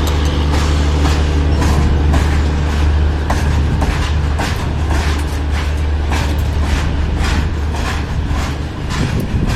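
Train wheels clacking over rail joints, the clacks coming about two to three a second over the steady low rumble of the moving train.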